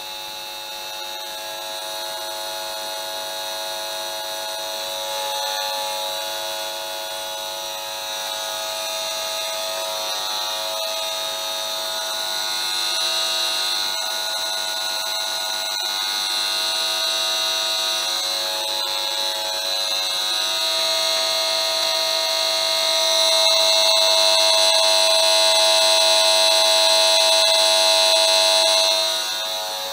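Esmog Spion EMF meter's audio output giving a steady electric buzz of many layered tones that swells and fades as the meter is swept over grounded shielding. About three-quarters of the way through it grows louder and holds for several seconds before dropping just before the end: a raised electric-field reading over the grounded shield, which the owner takes for EMF getting onto the ground wire.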